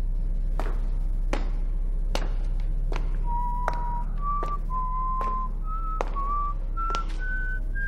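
Someone whistling a slow tune of single held notes, starting about three seconds in and climbing gradually in pitch. Under it run a steady low hum and evenly spaced knocks about every three-quarters of a second.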